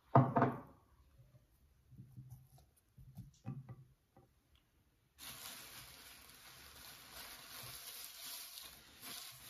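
A short loud knock right at the start and soft handling noises as a hand touches a seasoned whole fish on a platter. About five seconds in, a steady hiss sets in and continues.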